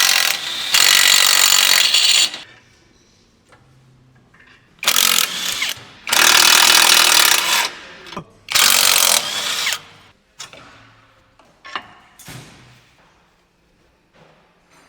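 A power impact wrench running in short bursts of one to two seconds, five in all, with a few light metal clinks and knocks after the last burst.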